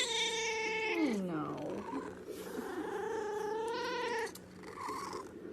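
Domestic cat giving two long, drawn-out meows. The first falls in pitch, and the second, starting about two seconds in, is held and wavers.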